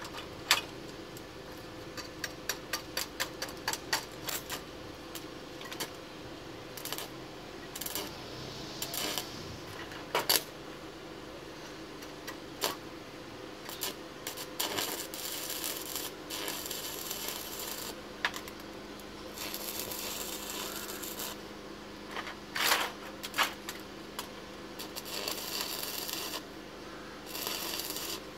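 Stick (arc) welding on a steel exhaust pipe: several stretches of a couple of seconds each of crackling, sizzling arc, with many sharp metallic ticks in the first few seconds and a steady low hum underneath.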